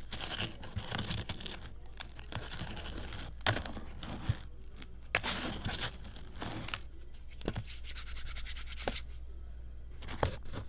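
Fingers crushing dried baking-soda crumbles in a plastic tub: crisp, dense crunching and crackling, the crumbles dried for days until very crunchy. The crunching thins to a few scattered crunches in the last few seconds.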